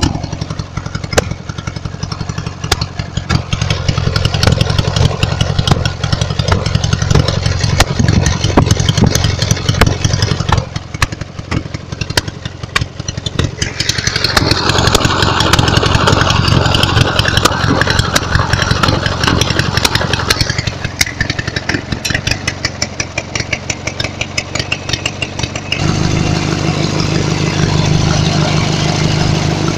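Lawn tractor engine running under way, with many sharp clicks and pops scattered through it. It grows louder for several seconds past the middle, then about 26 s in settles into a steady, even running note heard close up.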